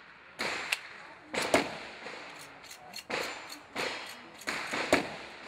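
Gunfire on a shooting range: an irregular string of sharp shots, about two a second, each with a short echo under the range roof.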